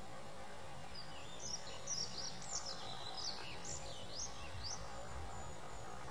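A small songbird chirping in a quick run of short, high, sweeping notes, from about a second in until near five seconds, over a steady background hiss.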